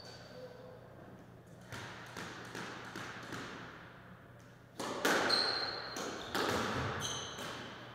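Squash ball knocks echoing around a squash court: a few sharp hits spaced a second or more apart, the loudest about five seconds in, with short high squeaks of shoes on the wooden floor.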